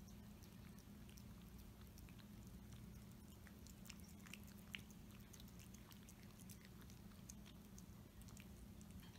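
Two cats eating canned wet food off plates: faint, scattered clicks and smacks of chewing and licking, one a little louder about halfway through, over a low steady hum.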